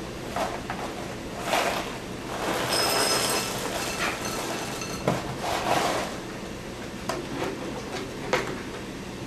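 Plastic cereal-bag liner crinkling, then Froot Loops cereal pouring out of the box into a ceramic bowl for a couple of seconds, followed by more crinkling. Near the end come a few sharp clicks as the cap of a plastic milk jug is twisted open.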